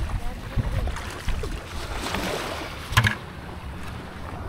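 Wind buffeting the microphone in a steady low rumble, with one sharp knock about three seconds in as a white plastic bucket is handled.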